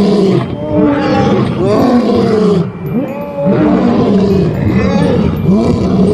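Male lions roaring in a bout, one call following another about once a second.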